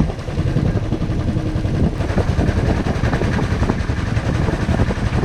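Riding noise from a moving motorcycle, picked up by a helmet-mounted GoPro: a steady low rumble of wind and engine.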